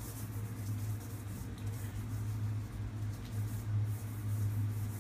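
Faint soft rubbing of palms and fingertips smoothing warm modeling chocolate wrapped around a copper tube, over a steady low hum.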